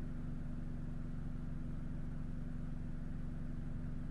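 Fiat Panda's 1.2 petrol engine idling steadily, a low, even hum.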